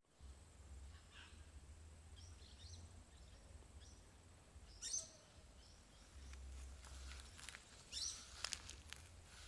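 Faint outdoor ambience with a few soft bird chirps in the first few seconds, then a handful of sharp clicks about five seconds in and again near the end.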